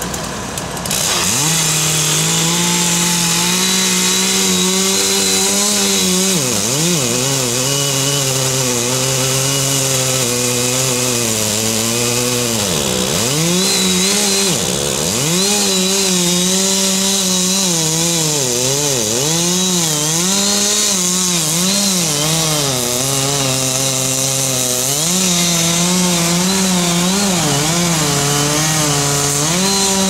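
Stihl MS 880 two-stroke chainsaw revving up from idle about a second in, then running at full throttle while cutting through a large tree trunk. Its pitch sags and recovers several times as the chain bites deeper into the wood under load.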